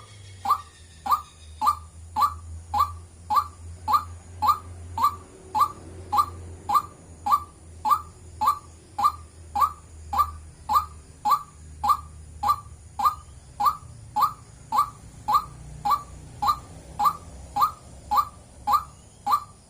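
White-breasted waterhen calling its monotonous 'wak' note over and over, one short note nearly twice a second at a steady even pace.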